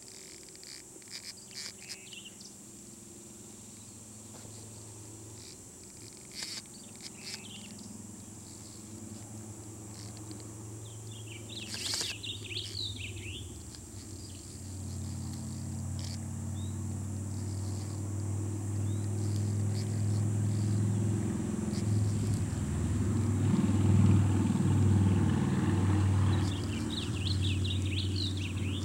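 Songbirds chirping in short phrases every few seconds over a low engine hum. The hum builds up from about halfway through, is loudest near the end, then eases off, as a passing vehicle or aircraft does.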